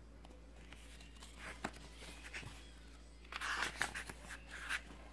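Paper pages of a picture book being turned by hand: a few soft rustles, then a louder flurry of paper crinkling and rustling about three and a half seconds in.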